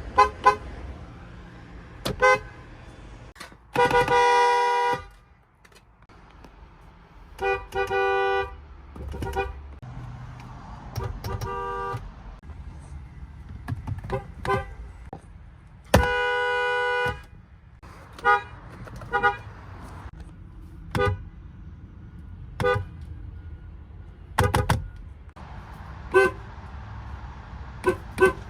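Infiniti car horns honking again and again: many short toots, with a few longer blasts of about a second. Under them is a low steady hum.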